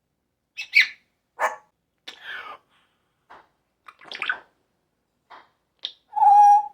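Pet parrot making a run of short squawks and mumbled chatter, ending with a loud, steady, pitched call of about half a second near the end.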